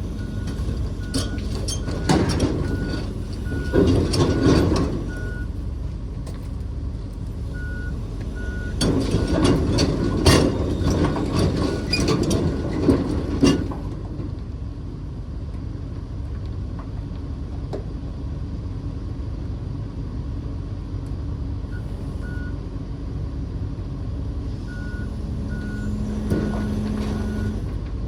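John Deere 135P excavator's diesel engine running while it travels onto a trailer, its travel alarm beeping about one and a half times a second for the first third and again near the end. Two loud spells of clanking and track rattle come in the first half.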